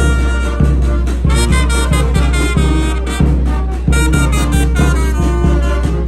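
A Mexican village brass band (banda de viento) playing a tune: brass and reed instruments carry the melody over a sustained low bass line, with a steady low beat about every two-thirds of a second.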